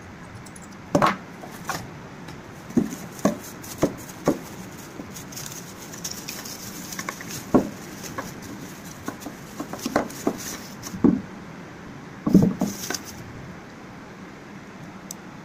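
Handling noise from unboxing a plastic flexible tripod: irregular clicks and knocks of its hard plastic parts and phone clamp set down and tapped on a wooden table, with some rustling of its plastic wrapping.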